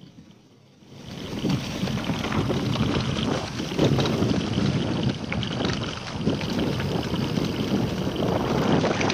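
Wind buffeting a GoPro Hero5's microphone, mixed with the knocks and rattle of a Scott Genius LT mountain bike rolling fast over a rough dirt trail. It rises quickly out of near quiet about a second in.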